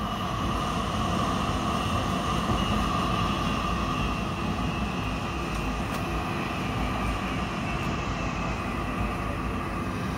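Tram running, heard from inside the car: a steady low rumble of the wheels and running gear with a steady high whine over it.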